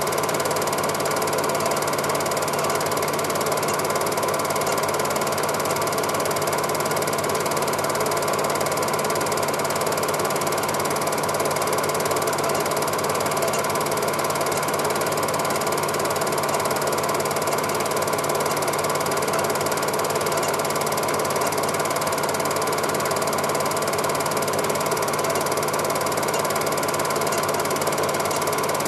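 Cine film projector running: the steady, rapid mechanical clatter of its film-advance mechanism with a motor whir, unchanging throughout.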